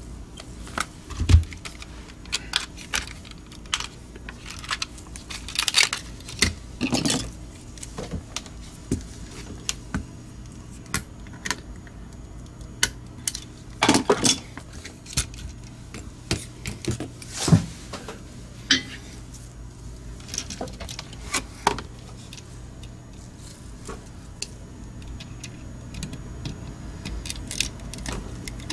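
Irregular sharp clicks and clacks of small plastic parts and a metal tool being handled while a Logitech G903 wireless gaming mouse is taken apart, the shell and internals knocking and snapping as they are worked loose.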